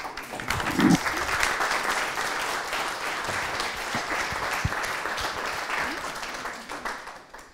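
Audience applauding: many hands clapping together, rising at the start and fading away near the end.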